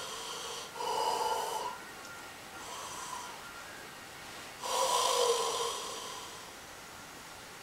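A person's forceful, open-mouthed, breathy exhalations in yogic lion's breath: a breath already under way at the start, another about a second in, a fainter one near the middle, and a longer, louder one at about five seconds.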